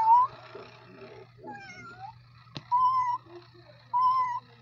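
Electronic walking toy cat playing recorded meows through its small speaker: one meow right at the start, then a click and two short, level-pitched meows about a second apart in the second half. A steady low hum runs underneath.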